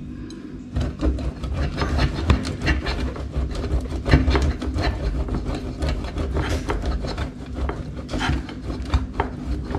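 A block of cheese grated by hand on a metal box grater standing on a plate: quick repeated rasping strokes that begin a little under a second in and keep on steadily.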